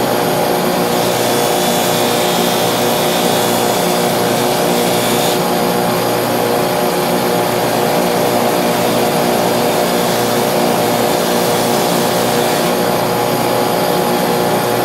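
Electric grinder running steadily with a constant motor hum, as knife steel is ground against it with a hissing grind. The hiss is brighter for a few seconds about a second in.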